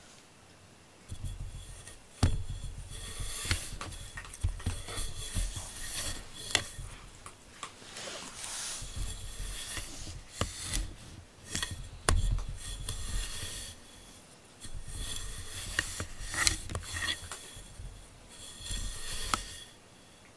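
A cat rubbing its chin and face against a camera's microphone: fur scraping over the mic in irregular bouts, with sharp clicks and low bumps as it pushes against the camera.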